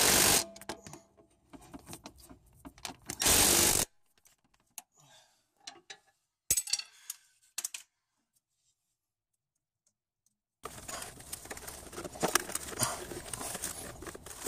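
Socket wrench work on the power steering pump bracket bolts: sharp metal clicks and clinks, with two short loud bursts of about half a second each, at the start and about three seconds in. Near the end comes a steadier stretch of rustling with clinks as the accessory belt and parts are handled.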